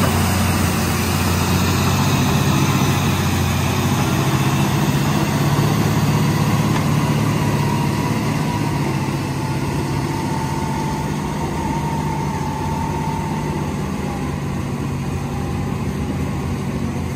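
Caterpillar D9L bulldozer running, its turbocharged V12 diesel a steady deep drone that gets a little quieter as the dozer pulls away. A faint high whine rises over it for a few seconds in the middle.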